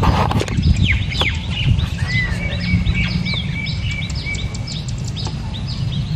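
Birds chirping over and over in quick, high, falling notes, about two or three a second, over a loud, uneven low rumble.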